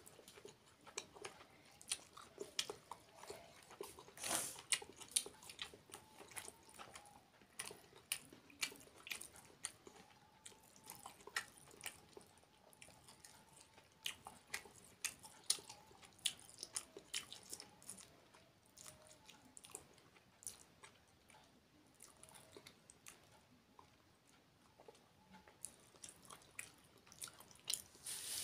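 A person eating rice and curry with his fingers: quiet chewing, with many short, irregular clicks.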